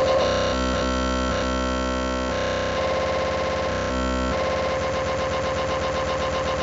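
Electronic music: dense, noisy synthesizer tones with chords that change every half second to a second, then settle into a steadier held chord near the end.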